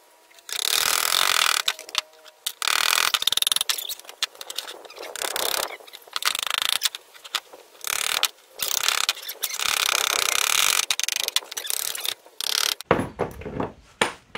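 Nails being pried out of a pine birdhouse panel to take its sides off. About seven rasping, creaking pulls of up to a second and a half each are followed by a few sharp knocks near the end.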